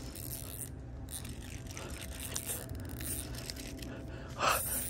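Small reel of a mini toy fishing rod being cranked to bring in a hooked fish, with faint mechanical handling noise. A short sharp breath comes about four and a half seconds in.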